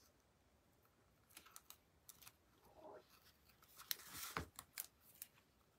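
Faint crinkling, ticking and scratching of adhesive tape and cardstock being handled: tape pressed onto a small cardstock door and picked at with the fingertips, in a few short scattered bursts.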